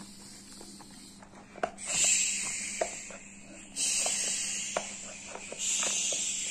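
Toy bathtub's shower hose spraying water over a plastic doll, a steady hiss that comes on about two seconds in and goes on in three stretches, with small plastic knocks and taps from handling the toy.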